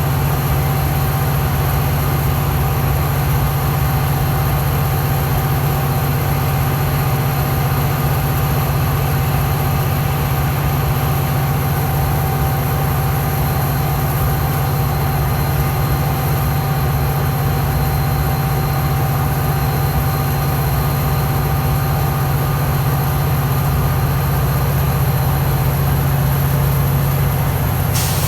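Diesel locomotive engine running steadily at idle, a constant low drone with a steady hum. A sharp click comes right at the end.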